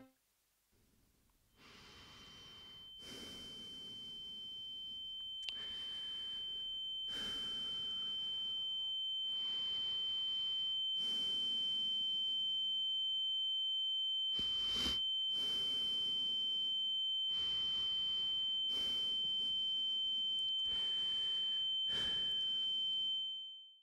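A steady high-pitched ringing tone fades in from silence and holds, then cuts off near the end. Underneath it, quick rhythmic breaths come about one a second.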